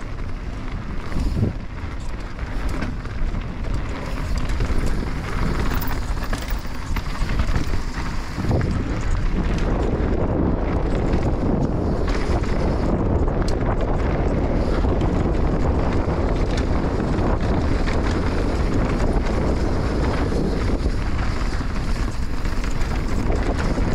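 Enduro motorcycle being ridden, its engine running under changing throttle and mixed with wind buffeting the microphone. It becomes louder and steadier about ten seconds in.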